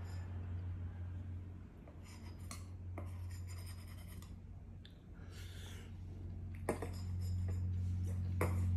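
Metal spoon scraping and clicking against a small stainless-steel bowl, a few separate clinks over a steady low hum.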